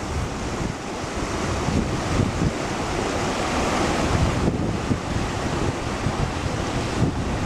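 Rushing river water: a steady, even rush of flowing water, fading in over the first couple of seconds.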